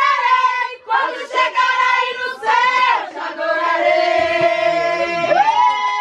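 A group of people singing a Portuguese Christian worship song together, holding long drawn-out notes.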